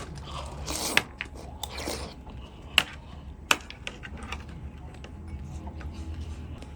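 A few sharp clicks and knocks, loudest about a second in and again near three and three and a half seconds, with short rustling noises among the first two seconds and a steady low hum underneath.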